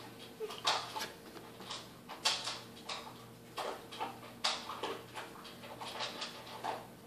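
Baby fussing in short, breathy whimpers and sobs, one every half second to second, in distress at the taste of a spoonful of baby food.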